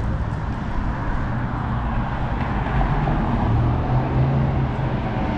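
City street traffic: cars driving by with a steady low engine and tyre rumble that swells a little past the middle.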